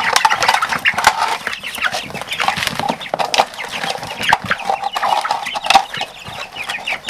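A crowd of young chickens cheeping and clucking in many short overlapping calls, with sharp clicks and knocks scattered through as plastic feeders and drinkers are handled among them.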